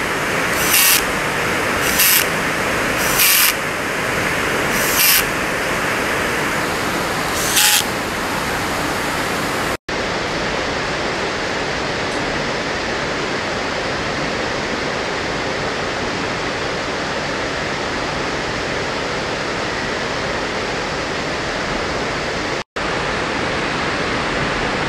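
Cordless drill-driver whirring in five short bursts in the first eight seconds, driving the terminal nuts down on an electric motor's terminal block. Under it is a steady rushing background noise throughout.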